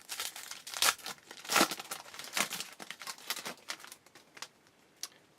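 Foil wrapper of a 2012 Bowman Platinum baseball card pack crinkling and tearing as it is opened by hand: a run of irregular crackles for about three and a half seconds, thinning to a few light clicks near the end.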